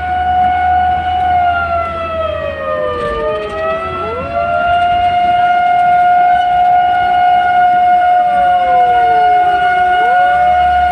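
Fire engine siren sounding: a steady high tone held throughout, while a second siren tone slowly falls in pitch and then sweeps quickly back up, once about two seconds in and again near the end.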